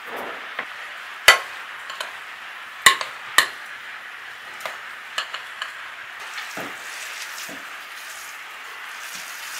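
A metal spoon clinks against a glass mixing bowl in a few sharp strikes, three loud ones in the first three and a half seconds and fainter ones after. Later come soft squishing sounds as hands work the ground-walnut and onion filling, over a steady background hiss.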